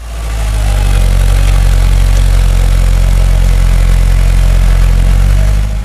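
Kubota L5030 tractor's diesel engine running loud and steady while the tractor works through deep mud.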